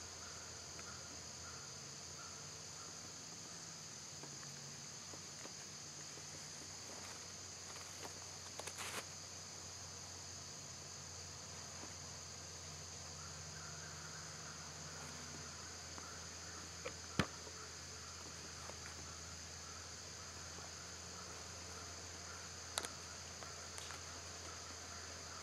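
Steady high-pitched chorus of insects in the woods. A few sharp clicks break through it: a quick cluster about a third of the way in, the loudest a little past the middle, and another near the end.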